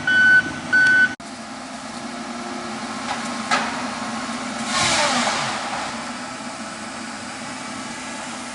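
Heavy logging machine's diesel engine running, its reverse alarm beeping twice at the start and then stopping abruptly. The engine keeps running steadily, with louder noisy swells about three and a half and five seconds in.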